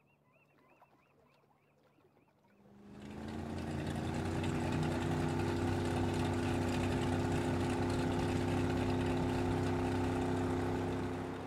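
Motor yacht's engines running steadily at cruising speed, a low drone over a hiss of water, fading in about three seconds in and dropping off sharply at the end. Before the engine comes in, a faint run of quick high chirps.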